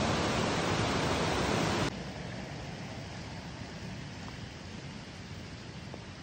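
Water rushing down a small waterfall in a rocky mountain gorge, a steady full hiss that cuts off abruptly about two seconds in. After the cut a much quieter, steady outdoor hiss goes on.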